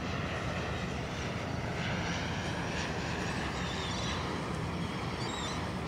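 De Havilland Canada Dash 8-400 turboprop on final approach, its two Pratt & Whitney PW150A engines and propellers giving a steady drone.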